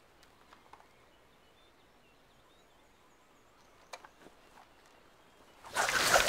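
Quiet jungle ambience with faint bird chirps and a few small clicks, broken near the end by a sudden loud explosion that throws up dirt and debris: the ambush opening.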